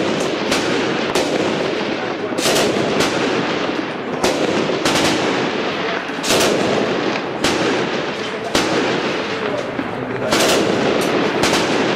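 Gunfire in street combat: single sharp gunshots at irregular intervals, about one every half second to second and a half, over continuous loud noise.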